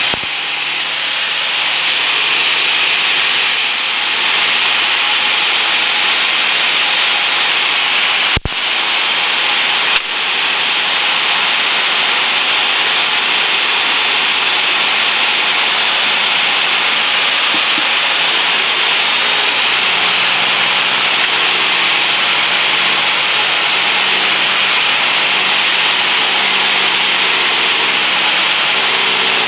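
Steady cockpit noise of a Cessna 172P in flight on approach: the four-cylinder Lycoming engine and propeller running under a dense rushing hiss of airflow. A brief dropout with a click comes about a quarter of the way in, with another click soon after, and a low engine hum grows stronger in the last third.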